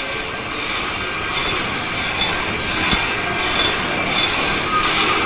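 Green coffee beans tumbling and rattling inside the rotating drum of an MKS-CRG400 coffee roaster over a gas flame: a steady rustling hiss that swells and fades in a rough, repeating rhythm as the beans cascade. A soft knock comes about three seconds in.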